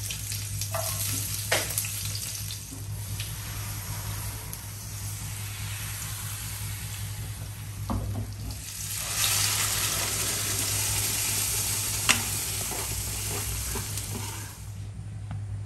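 Palappam batter sizzling steadily in a hot appam pan, with a few light knocks; the sizzle grows louder about nine seconds in.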